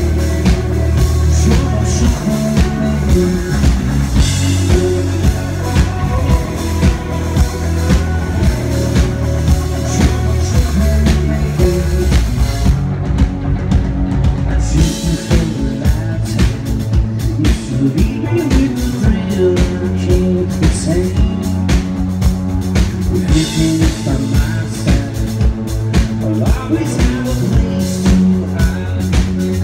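Live rock band playing loud and amplified: electric guitar, bass guitar and a drum kit keeping a steady beat.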